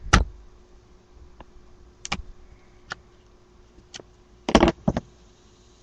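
Scattered clicks and knocks from handling a rolled paper tube and a nail while a hole is poked through the paper, with a sharp one near the start and a quick cluster of louder knocks about four and a half seconds in.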